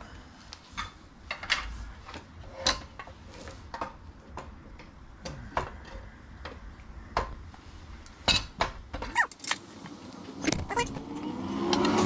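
Scattered clicks, knocks and clanks of the Kuat NV Base 2.0 bike rack's metal and plastic parts being handled and fitted together, with a brief squeak about eight seconds in. Near the end a louder swelling hum, like a vehicle going by, rises over the handling.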